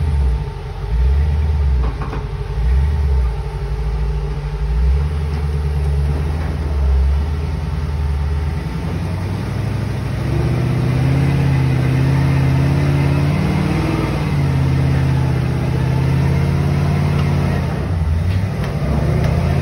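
1971 GMC full-size pickup's engine under load as the truck crawls over boulders on 43-inch tyres: short bursts of throttle at first, then from about halfway it holds higher, steady revs for several seconds before easing off near the end.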